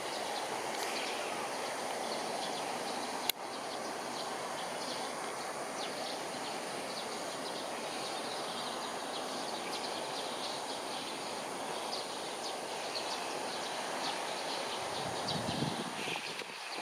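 Steady outdoor rushing noise, with a single sharp click about three seconds in.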